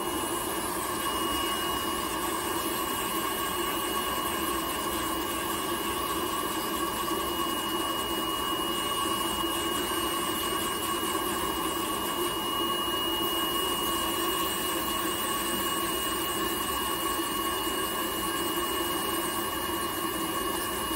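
Podiatry nail drill running with a steady high whine as its rotary burr grinds down a thickened toenail.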